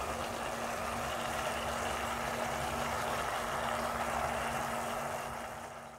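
Spaghetti simmering in boiling water in a pan, a steady bubbling hiss over a constant low hum, fading away near the end.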